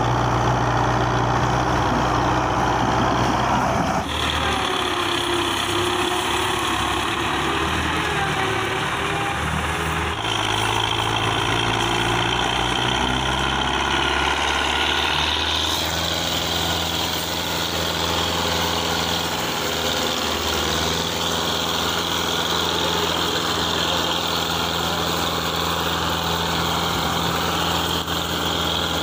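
Belarus 510 tractor's diesel engine running steadily under heavy load while pulling a fully loaded sugarcane trolley. The engine note changes abruptly a few times, about 4, 10 and 16 seconds in.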